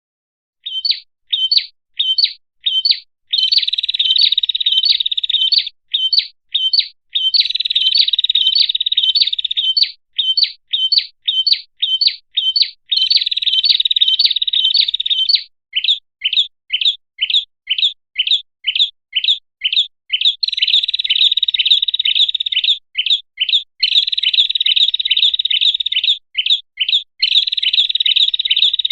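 Song of a red-headed prenjak played as a bird-lure recording: quick sharp chirps, two to three a second, alternating with buzzy trills a couple of seconds long.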